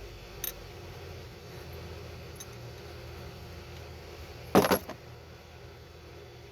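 Small metal parts clinking onto a hard surface: a faint click about half a second in, then a loud clatter of a few quick hits with a brief ring about four and a half seconds in, over a steady low hum.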